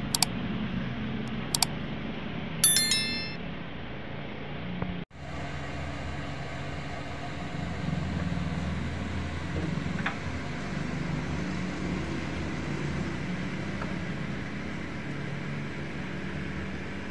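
Small electric fan running with a steady hum inside a homemade egg incubator. A couple of sharp clicks and a short ringing metallic clink sound near the start.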